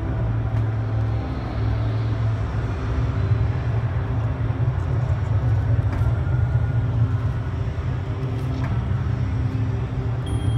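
Background music with a deep, steady bass and long held tones, heard over the general noise of a busy exhibition hall.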